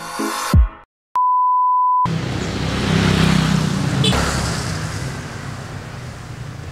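The end of a music track, then a single steady high beep lasting about a second, then outdoor street noise that swells and slowly fades.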